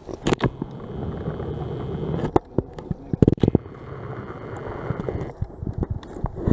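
Gloved hands cleaning debris off a magnet-fishing magnet: rustling and scraping with a run of sharp clicks and knocks, the loudest cluster about halfway through.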